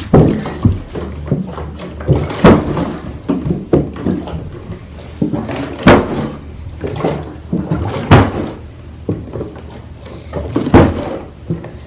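Large plastic water bottle, partly filled with water, flipped over and over and landing with sharp thuds on carpet, about five times, one every two to three seconds.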